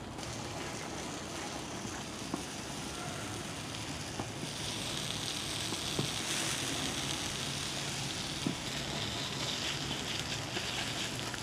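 Prawns and sausages sizzling in butter on an electric tabletop grill plate: a steady hiss that grows louder about four seconds in, with a few faint clicks.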